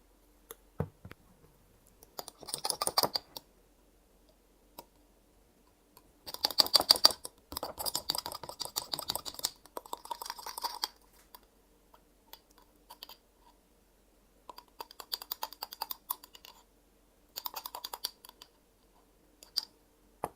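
Spoon stirring in a glass jar of honey, crushed garlic and cayenne, making rapid clinking clicks in four bursts of about one to five seconds, with a single click near the end.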